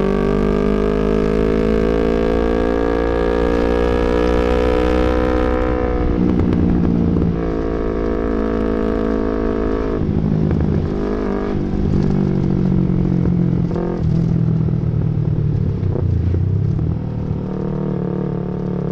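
Yamaha MT-25's 249 cc parallel-twin engine pulling under way, its pitch rising slowly for about six seconds, then dropping sharply at a gear change. It keeps running with the pitch rising and falling through the rest of the ride, with further drops around ten and fourteen seconds in.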